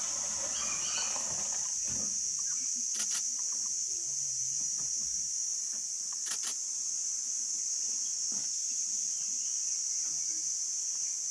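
A steady, high-pitched insect drone, unbroken throughout, with a couple of faint clicks.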